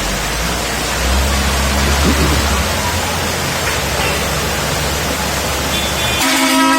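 Heavy rain coming down hard, a steady rushing hiss, with a low rumble in the first couple of seconds. Near the end a short car horn toot sounds.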